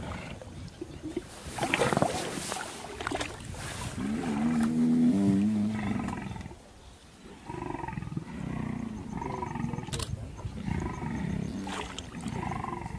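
Lions growling over a kill in shallow water: sharp noisy sounds in the first few seconds, then one long, loud, low growl about four seconds in, then a run of shorter calls about once a second.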